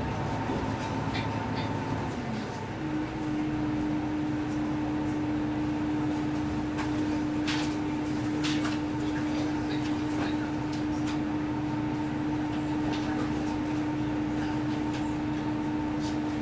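Diesel railcar running as it pulls away from a station. Its engine hum rises in pitch and then shifts to a single steady tone about two and a half seconds in, with scattered sharp clicks from the wheels and track.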